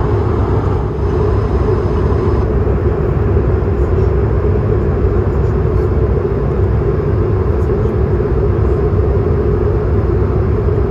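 Steady cabin noise of an Airbus A320 in flight, engines and airflow heard from inside the cabin: a deep, even rumble with a steady hum above it.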